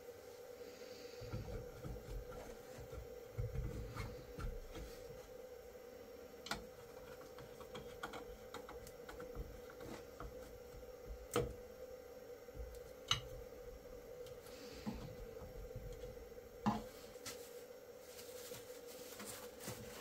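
Faint handling sounds: scattered light clicks and knocks with low bumps, over a steady low hum.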